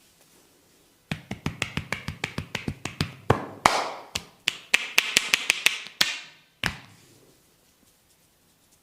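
Barber's hands rapidly tapping and slapping on a person's head and neck during a massage, about six strikes a second, with rubbing mixed in midway and a last single slap near the end.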